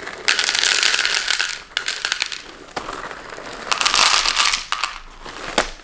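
Small cheddar Goldfish crackers poured from a foil-lined snack bag, rattling into a plastic bowl, twice in a row, each pour about a second long, with the bag crinkling. A sharp knock comes near the end.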